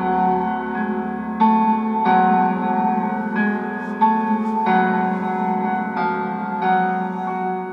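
Slow piano music played through the JLH 1969 class A amplifier kit into a speaker, with chords struck about once a second and left to ring.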